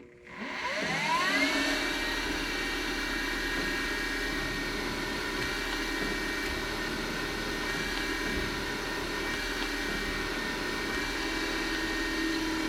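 Milling machine spindle starting up, its whine rising over the first second and a half, then running steadily while a cobalt drill bit drills aluminum. Near the end a lower tone sets in as the drill begins loading up a little.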